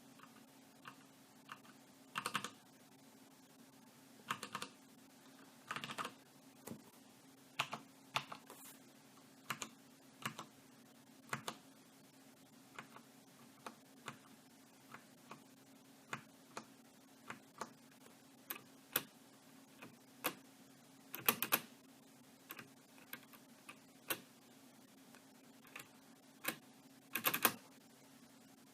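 Logitech G610 Orion Brown mechanical keyboard with tactile Cherry MX Brown switches, single keys pressed one at a time, each press a separate clack roughly once a second. A few presses, at about 2, 4, 6, 21 and 27 seconds in, are louder double or triple clacks.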